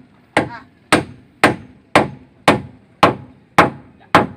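Hammer blows struck at a steady, even pace, about two a second, eight sharp strikes in a row.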